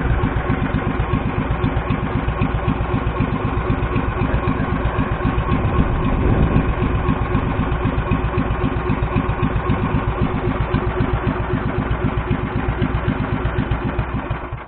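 Outrigger boat's engine running steadily under way, a loud, fast, even pulse of firing strokes.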